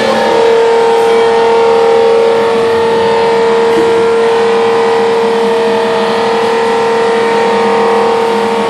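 Trumpf TC500 CNC punch press running while punching thin aluminium sheet: a loud, steady machine drone with a held whining tone, no single strokes standing out.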